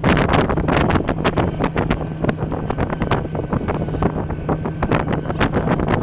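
Heavy wind buffeting the microphone during a snowmobile ride, over the steady drone of the snowmobile's engine.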